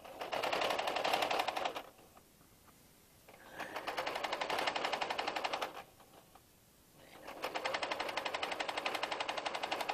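Sewing machine stitching a seam through fabric in three runs of rapid, even stitching, the last one the longest, with pauses of a second or so between them.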